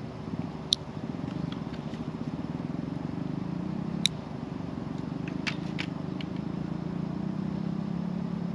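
A motor vehicle engine running steadily, with a low pulsing hum. A few sharp clicks sound over it.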